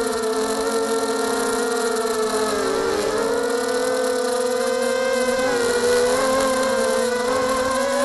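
FPV quadcopter's electric motors and propellers whining in flight, heard close from the onboard camera. The pitch holds mostly steady, dips briefly about three seconds in and again shortly before six seconds, then creeps upward as the throttle changes.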